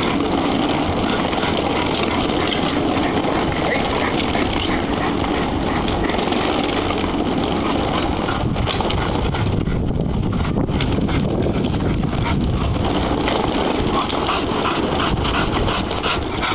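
Wooden slat-mill dog treadmill running under a trotting pit bull: a steady, continuous clatter and rumble of the slats.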